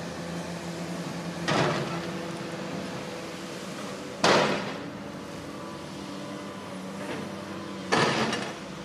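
An engine running steadily at a low, even drone, broken three times by sudden loud bursts of noise about a second and a half, four seconds and eight seconds in, the middle one the loudest.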